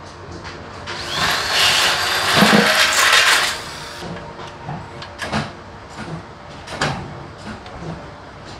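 Handheld electric drill boring into an aluminium ladder's hinge bracket and rail for about two and a half seconds, starting about a second in, then a few light clicks and knocks.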